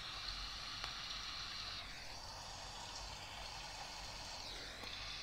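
Faint recorded rain playing from an iPhone's speaker, a steady even hiss.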